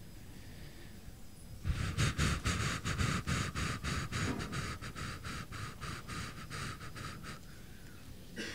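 Microphone handling noise: scratchy rubbing right at a handheld microphone, in quick even strokes of about four or five a second, starting a couple of seconds in and fading out after about five seconds.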